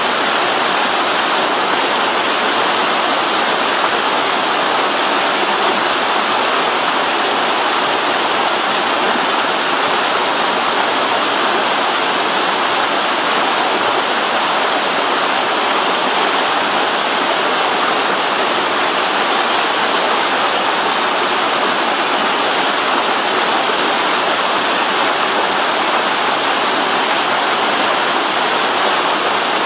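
Mountain stream water rushing and falling over rocks, a steady, even rush without pause.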